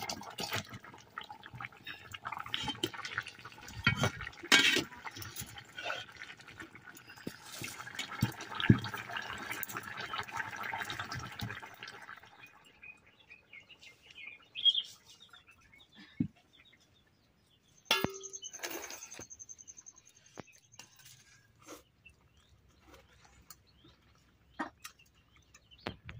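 Curry bubbling and being stirred and ladled in a metal wok, a wet sloshing noise with clinks of utensils on metal. About halfway through it gives way to quieter scattered knocks and a brief high trill.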